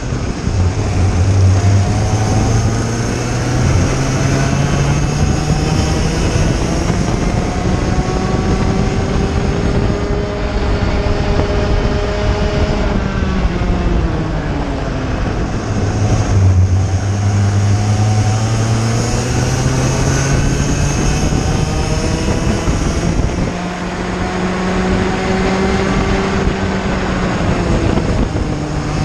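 IAME Cadet kart's two-stroke engine at racing speed, heard onboard: its pitch climbs steadily along the straights and drops as the driver lifts for corners, three times over. Other karts' engines run close by.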